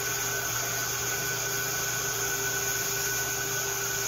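Toner vacuum running steadily with an even hum, sucking the last old developer out of a copier's developer unit.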